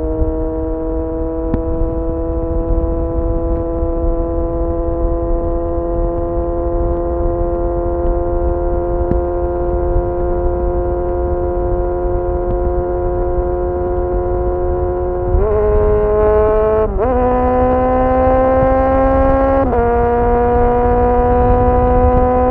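Kawasaki Z900's inline-four engine through a full titanium SC-Project exhaust, heard from the rider's seat, pulling steadily with its pitch creeping up. About two thirds in the throttle opens and two quick upshifts, a few seconds apart, each drop the pitch before it climbs again. Wind rumbles low underneath.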